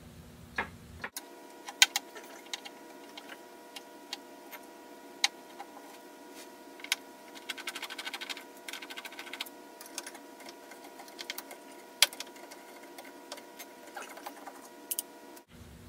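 Scattered clicks and knocks of a screwdriver and metal parts as screws come out of a rear-projection TV's electronics chassis, with a quick run of fast ticks about eight seconds in, over a steady electrical hum.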